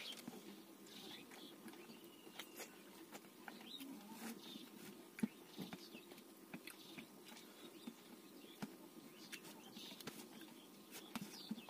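Quiet eating sounds: fingers mixing rice against a steel plate and chewing, scattered soft clicks and taps, with one sharper tap about five seconds in.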